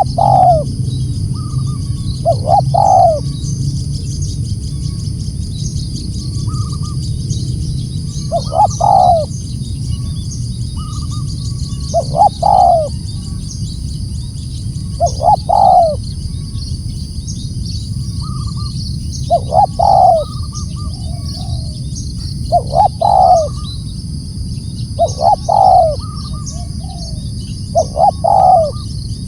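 Spotted dove (tekukur) cooing: a short phrase of two or three low, falling coos, repeated about every three seconds, over a steady high hiss.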